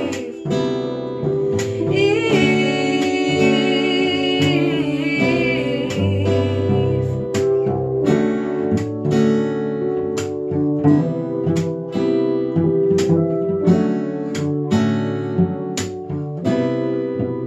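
An acoustic folk-soul song played live: a steadily strummed acoustic guitar over sustained bowed cello lines, with women's voices singing, clearest about two to five seconds in.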